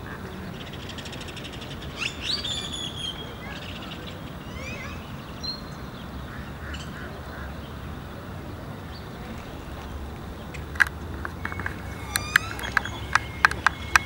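Ducks quacking and other birds calling in short chirps and whistles over a steady low rumble, with a run of sharp clicks near the end.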